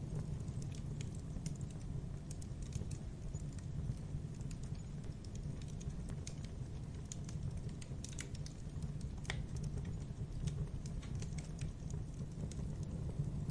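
Logs burning in a fireplace, crackling: scattered small snaps and pops over a steady low rumble of the fire, with one sharper pop about nine seconds in.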